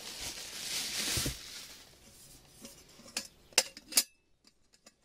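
Plastic bubble wrap crinkling as it is pulled off a stainless steel camping mess kit. This is followed by a few sharp metal clinks of the kit's pot, lid and wire handle, the loudest two just before the end.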